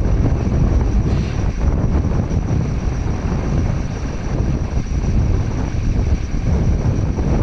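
Excavator's diesel engine running steadily as a dense low rumble, with wind buffeting the microphone.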